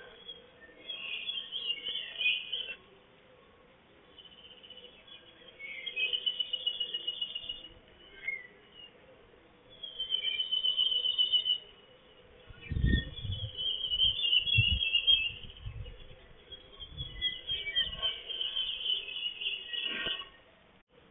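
A songbird singing short, high, trilled phrases, one every few seconds. A few low thumps on the microphone come about halfway through.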